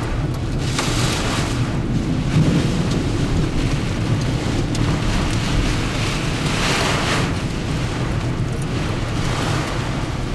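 Heavy wind-driven thunderstorm rain lashing a moving car, heard from inside the cabin over the low rumble of the car and the wind. It swells in gusts about a second in and again around seven seconds, with a few sharp ticks of something striking the car.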